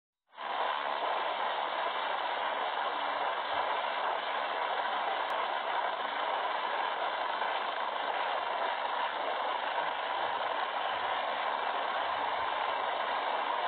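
Rescue helicopter's turbine engines and main rotor running at take-off power, a steady rush of noise, as it lifts off the helipad.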